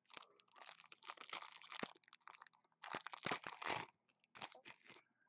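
Foil wrapper of a trading-card pack crinkling and tearing as it is opened by hand, in two long stretches of crackling, with a few shorter crackles near the end.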